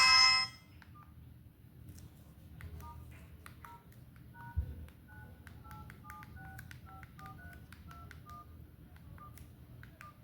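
Keypad tones of a mobile phone as a number is dialed: a quick string of short two-tone beeps, irregularly spaced, with one dull thump about halfway through.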